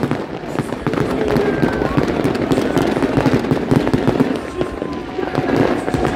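Fireworks bursting overhead: many quick, irregular pops and crackles, with people's voices underneath.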